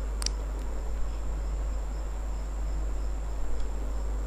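Steady background noise: a low electrical hum and hiss with a high, thin whine and a faint pulsing chirp above it, and a short click about a quarter second in.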